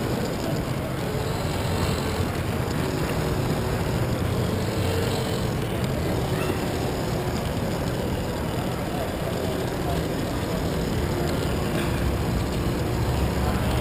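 Lego monorail train's motor and gearing running steadily as it travels along its track, a constant rumble with a faint whine, picked up through the camera riding on the train.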